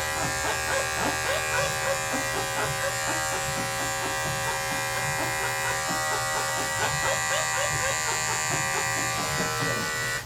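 Electric dog-grooming clippers running at a steady hum, then cutting off suddenly at the end.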